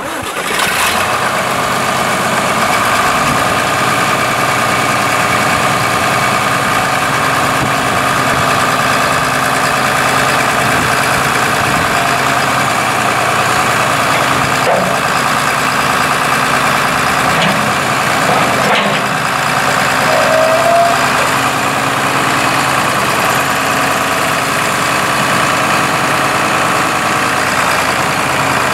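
John Deere 4230 tractor's 6404 six-cylinder diesel engine running steadily, with a few brief extra sounds about halfway through.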